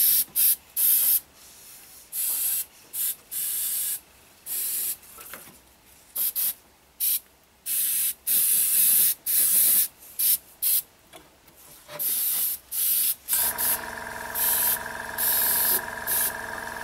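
Airbrush spraying paint in many short hissing bursts as the trigger is pressed and released. About thirteen seconds in, the air compressor feeding it starts a steady hum under the bursts.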